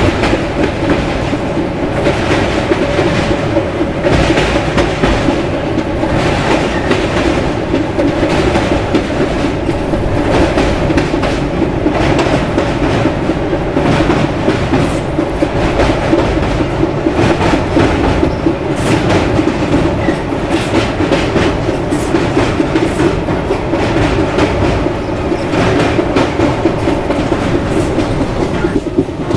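Coromandel Express passenger train running along the track, heard from on board: a steady loud rumble of the coaches with frequent irregular clickety-clack of the wheels over rail joints.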